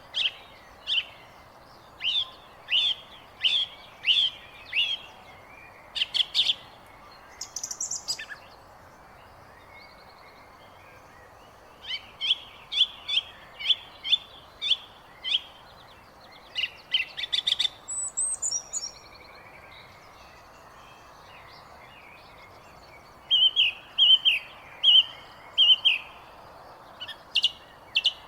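Bird chirping in quick runs of short, sharp repeated notes, each run lasting a few seconds with pauses between, over a steady background hiss.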